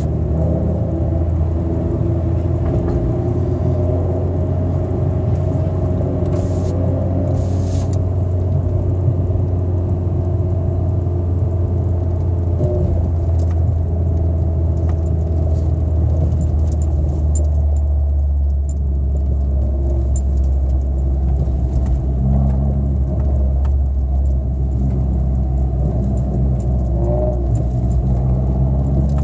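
Car engine running at a steady low speed, heard from inside the cabin as a constant low drone, with faint light rattles on top.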